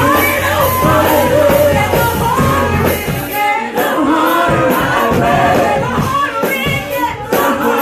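Gospel praise and worship song: singers over a full band. The bass drops out briefly a little past halfway.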